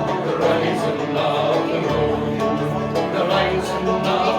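Live Irish ballad music played by an acoustic group, continuous with no break.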